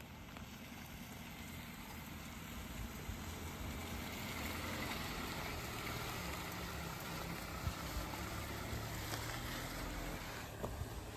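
Hyundai Tucson SUV's engine running as the car moves slowly along a dirt track, growing louder over the first few seconds and then holding steady.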